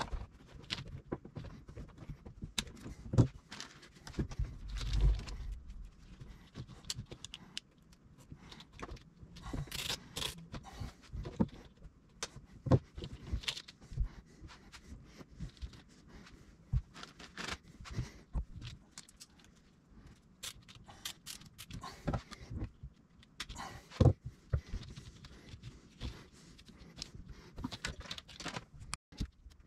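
Irregular clicks, scrapes and rustles of hands handling corrugated plastic wire loom and zip ties in a jet ski's engine bay, with a few louder knocks scattered through.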